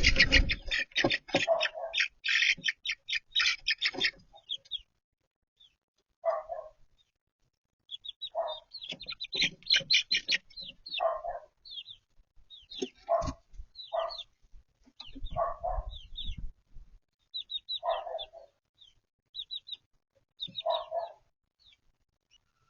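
Chicks peeping in quick high-pitched chirps, with a hen's lower clucks every couple of seconds. The peeping is loudest at the start and the calls stop shortly before the end.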